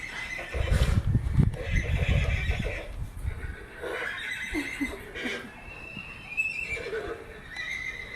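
Repeated horse whinnies: high, wavering calls recurring every second or two. A loud low rumble runs for about two and a half seconds near the start.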